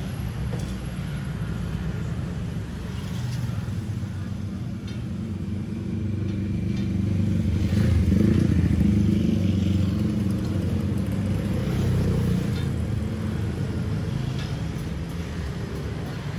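Street traffic: the engine rumble of motorbikes and cars on the road, swelling to its loudest about halfway through and then easing off, with a few faint clicks of utensils.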